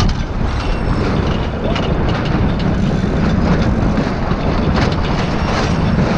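Steady wind rumble on the microphone aboard a sailboat under way in a fresh breeze, with a few faint scattered ticks.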